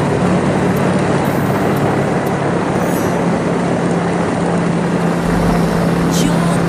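Motorbike running steadily on the road with heavy wind and road noise over a steady low engine hum; a deeper rumble comes in about five seconds in.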